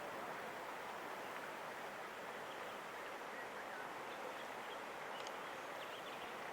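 Steady outdoor background hiss, with a few faint, short ticks about four to five seconds in.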